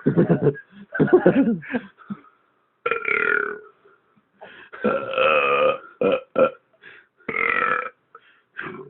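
Deliberate belching over and over: about ten separate belches of varying length with wavering pitch. The longest runs over a second near the middle.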